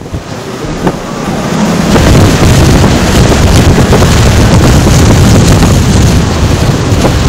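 Hurricane-force bora wind blasting the microphone: a loud, even rush with a heavy low rumble that builds over the first two seconds and then holds.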